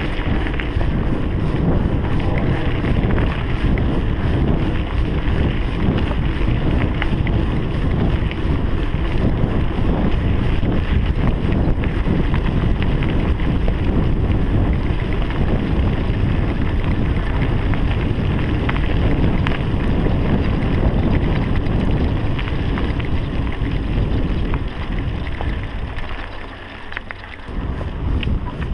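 Wind buffeting a bike-mounted GoPro's microphone over the rumble of mountain bike tyres on a dirt track, with scattered small clicks. Near the end the wind noise briefly drops away.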